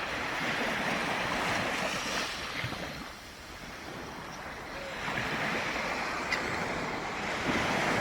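Ocean surf washing in a steady hiss, easing off a few seconds in and building again toward the end.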